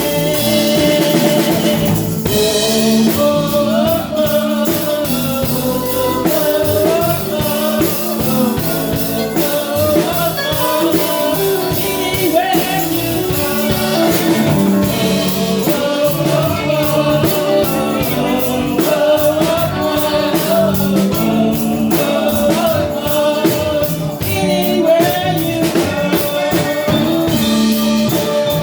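A song with singing over a drum kit and instruments, at a steady level.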